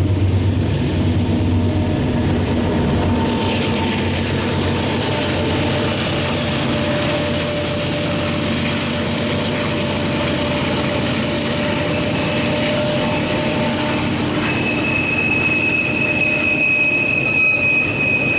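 Norfolk Southern freight train passing close by. The diesel locomotives' engines rumble for the first few seconds, then the cars roll past with steady wheel-on-rail noise. In the last few seconds a steady high-pitched wheel squeal joins in.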